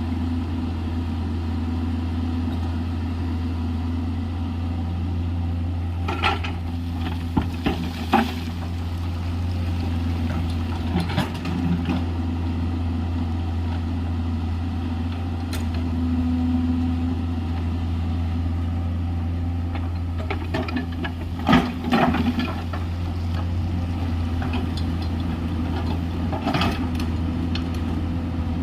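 JCB 210LC tracked excavator's diesel engine running steadily at working speed. Several sharp clanks and knocks come over it, singly and in small clusters, the loudest about three quarters of the way through.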